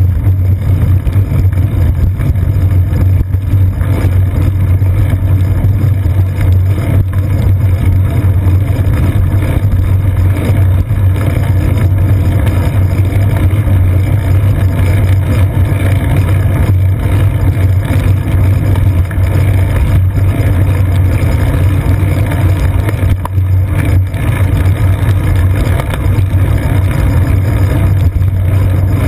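Steady, loud low rumble of a bicycle rolling over wet pavement, picked up by a seat-post-mounted GoPro Hero 2: road vibration and wind buffeting the camera, with no breaks.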